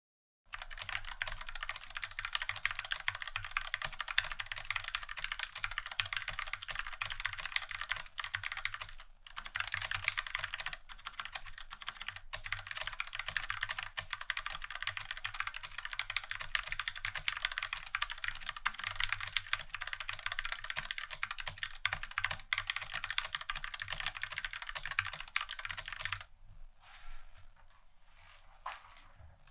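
Fast, continuous typing on a Tecware B68 mechanical keyboard with Gateron Black linear switches, the board sitting directly on the desk without a desk mat. A dense stream of keystrokes that thins to a few scattered key presses near the end.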